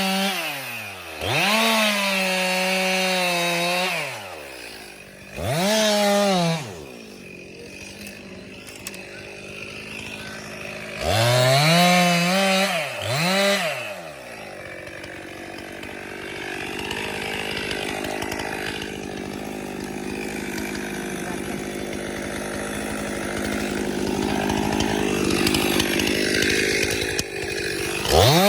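Two-stroke chainsaw revved up and back down four times in quick succession. It then runs steadily, lower and rougher, in a cut through the tree's wood, growing slowly louder as the cut goes on.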